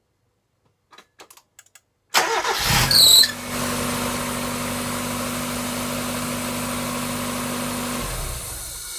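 Mazda MX-5 four-cylinder engine being started: a few faint clicks, then the starter cranks about two seconds in and the engine catches with a brief high squeal, settles into a steady idle, and is switched off near the end. The start-up noise survived new belts, and the owner suspects the water pump or power steering pump bearings.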